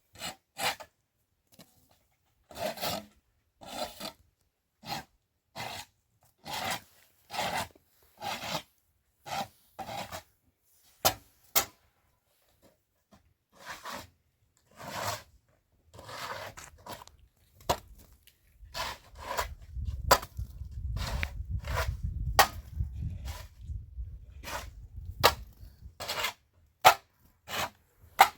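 Repeated rubbing or scraping strokes, roughly one a second, with a few sharp clicks among them and a low rumble underneath in the second half.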